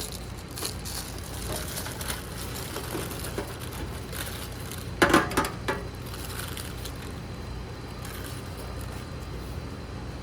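Metal pans and utensils clanking as cooked chicken is moved from a sheet pan into a deep steam-table pan, with a few louder sharp clinks about five seconds in. A steady low hum runs underneath.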